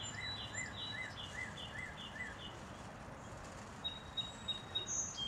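Outdoor ambience with a bird calling a quick series of repeated short notes, about three a second, that stops about two and a half seconds in. A few thin high notes follow near the end.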